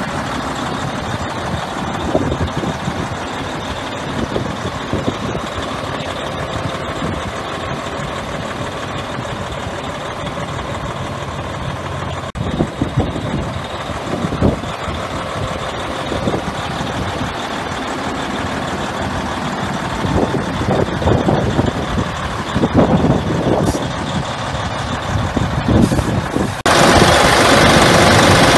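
Freightliner Coronado 122 tractor's diesel engine idling with a steady run. The sound turns suddenly louder and brighter a couple of seconds before the end, heard close to the open engine bay.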